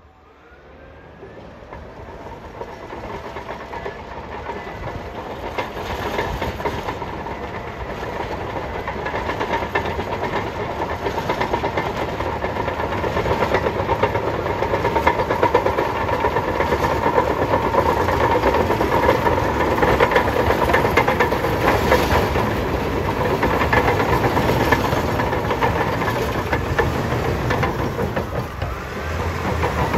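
Bulldozer diesel engine running under load with its steel crawler tracks clanking and clattering, growing louder over the first dozen seconds as the machine comes close, then staying loud.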